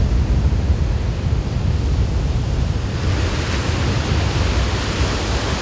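Surf breaking and washing on a sandy beach, with wind buffeting the microphone in a low rumble. The hiss of the surf grows stronger about three seconds in.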